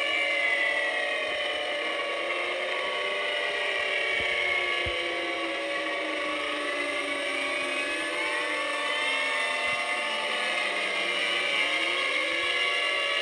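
Several outdoor tornado warning sirens sounding together during a test, their tones at different pitches gliding up and down out of step with each other; one tone falls slowly in pitch across most of the stretch.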